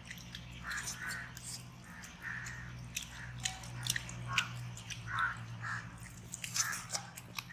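People eating grilled whole chicken with their hands: chewing, lip-smacking and tearing of meat, heard as many short sharp clicks and smacks.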